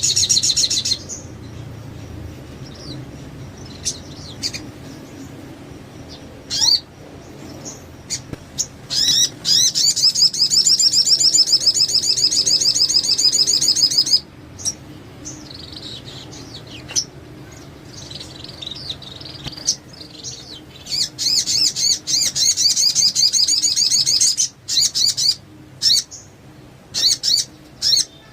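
A male crimson sunbird (sogon) singing energetically in long, very high, rapid trills of several seconds each, with short chirps in between.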